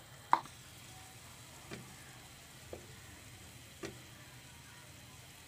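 Bread pieces frying with a faint sizzle in shallow oil in a nonstick wok, while a wooden spatula knocks against the pan four times, about a second apart, the first knock the loudest.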